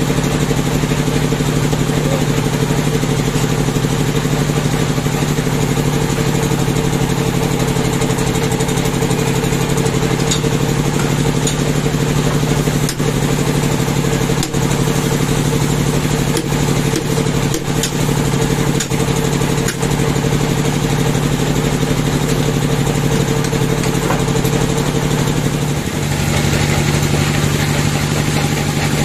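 Band sawmill running steadily, with several knocks in the middle as the log is clamped on the carriage. About 26 seconds in, the tone shifts as the blade starts cutting into the log.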